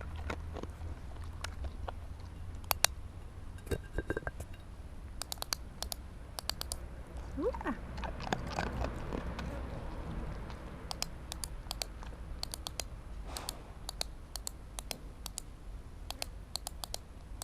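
A dog working at a board of scent tins: irregular sharp clicks and taps, some coming in quick runs.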